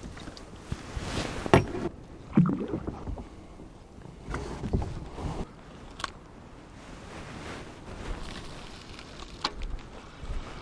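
Rowboat on the water: irregular splashing and sloshing, with a few sharp knocks against the boat, one about a second and a half in, one midway and one near the end.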